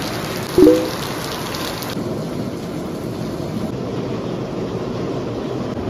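Steady downpour of heavy rain, a dense even hiss. About half a second in, a brief, loud pitched tone cuts through it.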